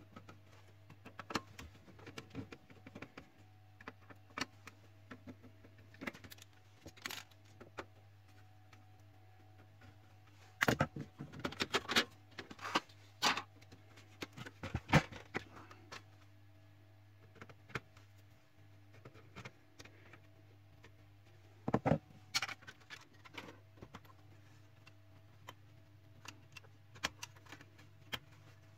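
Scattered clicks, knocks and light metallic clinks from a laser printer's plastic panels, screws and tools being handled during disassembly, in clusters about ten to fifteen seconds in and again near twenty-two seconds, over a steady low hum.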